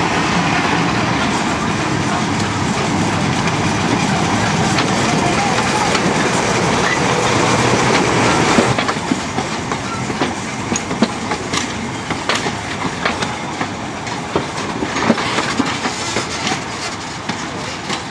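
TU2 narrow-gauge diesel locomotive's engine running under load as it draws its train away. About halfway through, the coaches roll past with the clickety-clack of wheels over the rail joints: many irregular sharp clicks.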